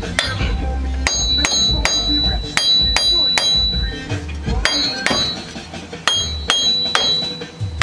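Hammer blows on a steel wheel hub and axle, about two to three ringing metallic strikes a second starting about a second in, knocking the old hub and bearing loose from the knuckle and driving the axle shaft through it.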